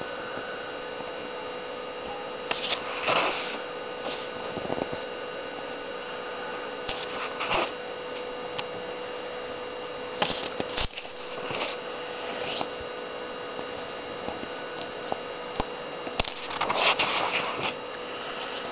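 Steady electrical hum, with several short bursts of paper rustling as a comic book's pages are handled and turned; the longest rustle comes near the end.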